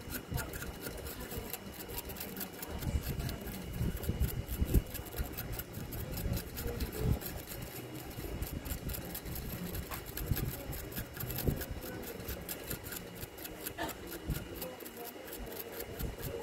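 Stiff brush scrubbing the solder side of the TV's circuit board, a quick scratchy stroke repeated a few times a second.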